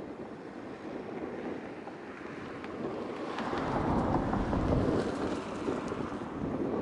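Wind buffeting the microphone over sea water lapping below, growing louder about halfway through, with a few faint ticks.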